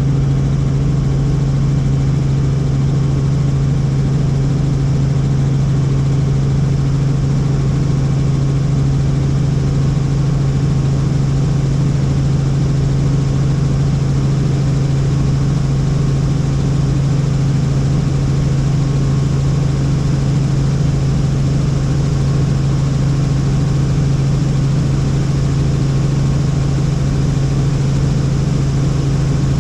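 Helicopter in flight, its engine and rotors running steadily with a strong, unchanging low hum.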